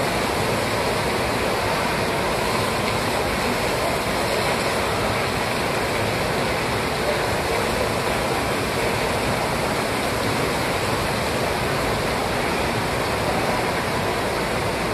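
Steady rush of falling water.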